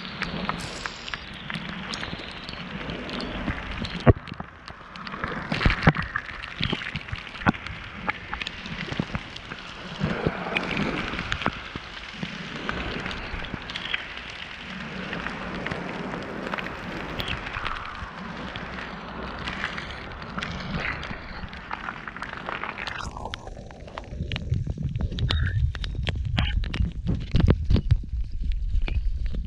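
Heavy rain pouring and splashing, with many drops cracking sharply close to the microphone. Near the end the sound turns muffled and deep, with a low rumble.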